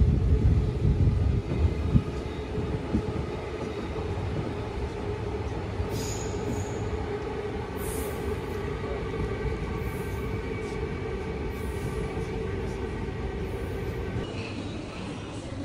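Hibiya Line subway train heard from inside the car: a heavy low rumble at first, then a steadier run with several held whining tones as it slows for the next station, growing quieter near the end.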